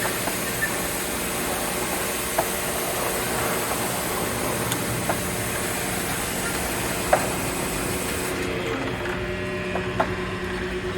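Vent-pipe washer spraying water onto a pipe with a steady hiss over a running pump or motor hum, with a few light knocks. The spray cuts off about three-quarters of the way through, leaving the motor hum.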